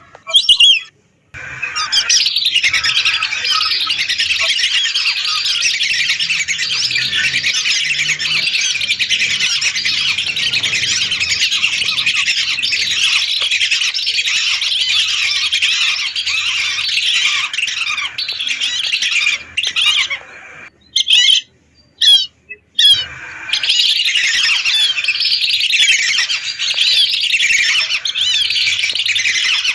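A large flock of whistling ducks calling together: a dense, loud chorus of overlapping high whistles. It cuts out abruptly for a moment about a second in and again briefly around two-thirds of the way through.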